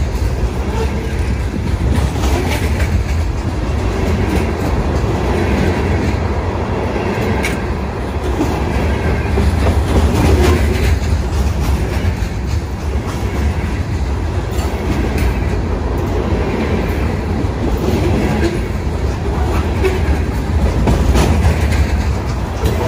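Open-top hopper cars of a freight train rolling past close by: a steady low rumble of wheels on rail with scattered sharp clicks and clanks as the wheels cross rail joints.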